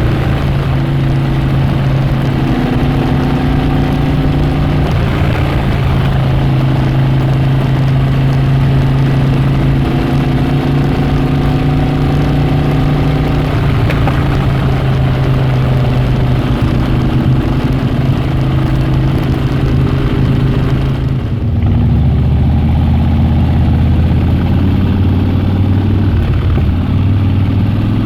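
Harley-Davidson Dyna Switchback V-twin engine and exhaust running at a steady pitch. About two-thirds of the way through, the revs drop suddenly to a lower, deeper note, then rise a little near the end.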